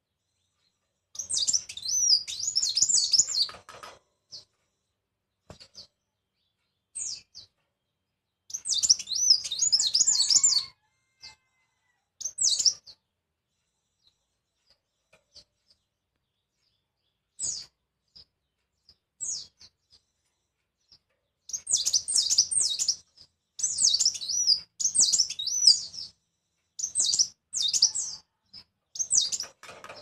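Caged male cericap songbird singing in bursts of rapid, high warbling phrases, with single short chirps in the pauses; the song becomes almost continuous in the last third.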